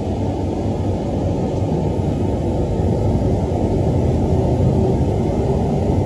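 Low, steady jet engine noise heard muffled from inside an airliner cabin, slowly growing louder.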